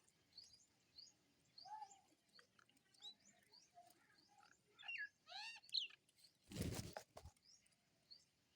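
Small birds chirping, a thin series of short rising chirps with a few lower calls among them and a quick run of arched calls about five seconds in. A brief rushing noise, such as wings or a bump, comes just under seven seconds in.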